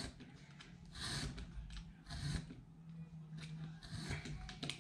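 A hook-bladed cutter scraping repeatedly along a copper-clad circuit board, scoring a groove so the board can be snapped in two. Faint scratchy strokes come about once a second over a low steady hum.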